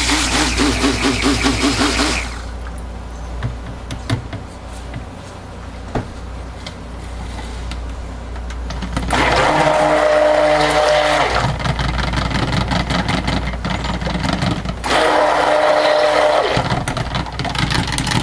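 Handheld stick blender running in short pulses in a jug of soap batter, with a steady whine. It runs briefly at the start, for about two seconds near the middle, and briefly again near the end, with a few light knocks in the quiet stretches between.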